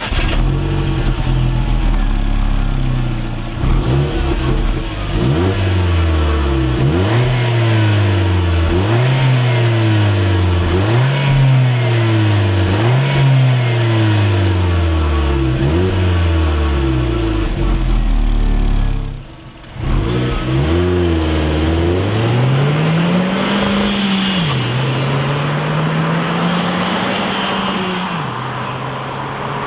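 Holden Barina RS 1.4-litre turbo four-cylinder heard at the tailpipe, idling and then blipped repeatedly, the revs rising and falling about every two seconds. After a short break it pulls up through the revs twice, with a drop in pitch between, as at a gear change.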